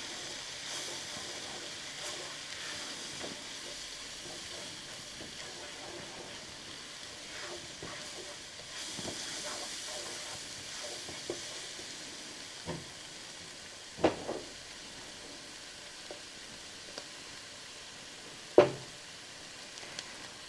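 Onions, garlic and flour cooking in butter in a nonstick frying pan: a steady sizzle while a silicone spatula stirs and scrapes, with small clicks. Two sharp knocks come about 14 and 18½ seconds in, the second the loudest.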